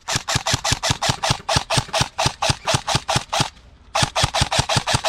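Airsoft gun firing on full auto, about eight shots a second, in two long bursts with a short pause about three and a half seconds in.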